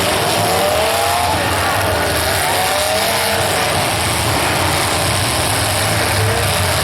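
Demolition derby cars' engines running and revving, several at once, their pitch rising and falling over a loud, steady roar.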